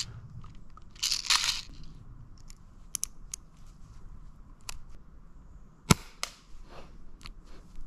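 Small gold two-barrel green-gas airsoft pistol being readied and fired. There is a short hiss or rustle about a second in, then a few light clicks as it is handled and cocked, and a single sharp shot about six seconds in.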